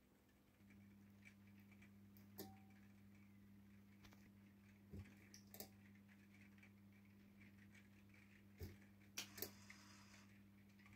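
Faint steady electric hum from a model railway locomotive's motor, starting about half a second in, with a few soft clicks and taps.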